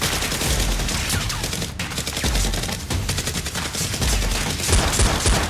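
Rapid machine-gun fire sound effects: a continuous fusillade of dense, quick shots, laid over the Nerf blaster firing.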